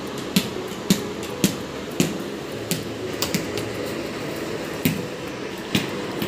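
A small play ball bouncing on a tiled floor as it is dribbled by hand: a short thump about twice a second at first, then more irregular bounces with longer gaps after about three seconds.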